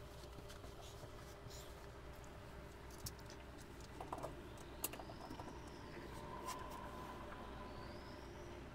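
Faint background noise: a steady low hum with a few soft clicks and ticks about three to five seconds in.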